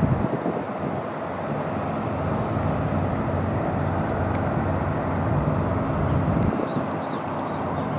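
Boeing 737 MAX 8's CFM LEAP-1B turbofans on landing approach: a steady distant jet rumble.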